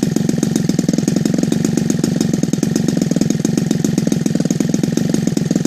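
Evolution 45 cc single-cylinder two-stroke petrol engine on a CH CDI ignition, with its 22 x 8 propeller spinning, running steadily at a low idle with an even firing rhythm. It is being broken in on a rich 22:1 fuel mix.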